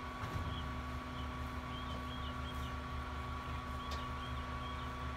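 2017 CNG Ez-Pack Goliath rear-loading garbage truck idling: a steady low engine rumble with a steady high whine over it.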